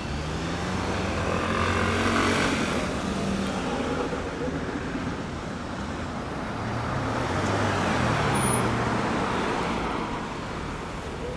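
A Mercedes-Benz ambulance van and an emergency-doctor SUV driving past at low speed. Their engine and tyre noise swells about two seconds in and again about eight seconds in, with no siren sounding.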